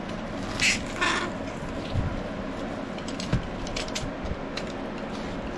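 Crinkling and rustling of clear plastic wrap as it is handled and cut open with a utility knife, with two louder crinkles about a second in and a few soft knocks on the bench, over a low steady hum.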